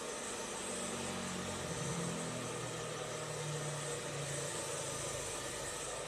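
A motor engine humming over a steady background hiss, starting just under a second in, shifting slightly in pitch and dying away a little after five seconds.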